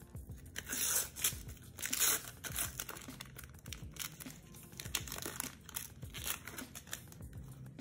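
A foil sticker packet torn open by hand, with the loudest tearing about one and two seconds in, then the wrapper crinkling as the stickers are pulled out of it.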